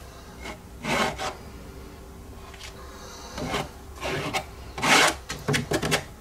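A plastic credit card scraping thick acrylic paint and impasto gel across a stretched canvas, in several short scraping strokes, the loudest about five seconds in.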